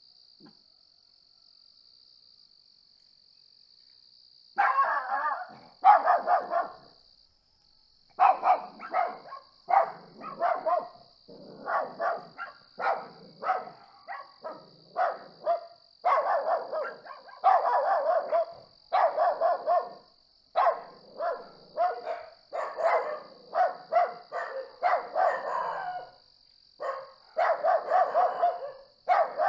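A dog barking repeatedly in quick runs of barks, starting about four seconds in, over a steady high trill of crickets.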